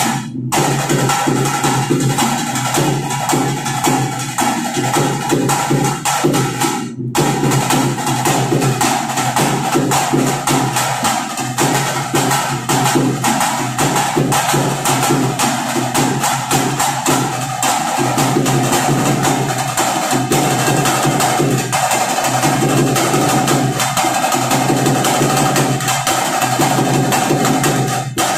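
Live drumming with fast, dense beats and a steady held tone above them, playing for a dance. The sound cuts out for an instant twice: just after the start and about seven seconds in.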